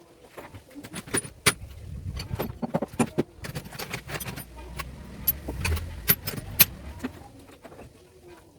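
Metal hand tools and small engine parts clicking and clinking at irregular intervals as a motorcycle engine's cylinder head top is being unbolted, with a low rumble of handling in the middle; the engine is not running.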